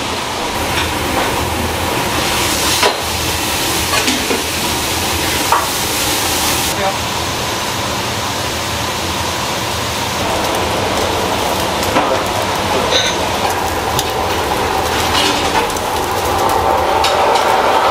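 Kitchen work sounds: a thick sauce being stirred in a metal tray, sauce poured into a steel bowl, then eel bones sizzling on a charcoal grill, with scattered clicks and voices in the background.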